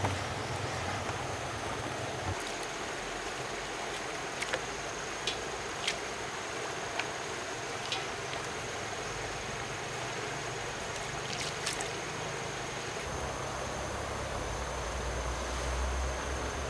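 Steady outdoor water noise, like a flowing stream, under a constant high-pitched whine, with a few sharp ticks scattered through it. A low rumble sits under it for the first two seconds and comes back over the last few.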